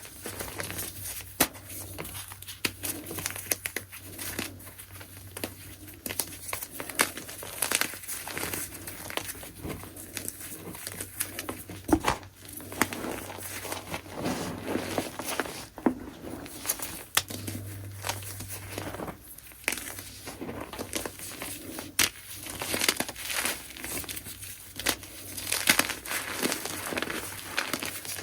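Soft, crunchy chunks of gym chalk being crushed: a dense, irregular run of crumbling crackles with scattered sharper snaps.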